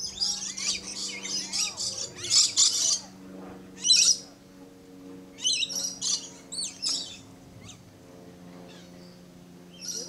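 Lories giving rapid, shrill chirps and screeches in clusters: thick in the first three seconds, another burst near four seconds, and a run between about five and a half and seven seconds, then mostly quiet. A faint steady low hum runs underneath.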